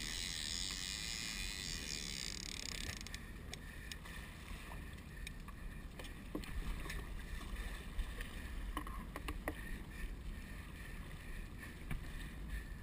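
Steady rumble and water wash of a small boat under way on the open sea, with wind on the microphone and a few faint knocks.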